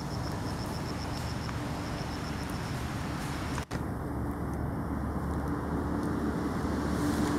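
Steady outdoor background noise with a fast, high-pitched pulsing chirp over the first two and a half seconds. The sound drops out for an instant a little past halfway, then the steady noise carries on.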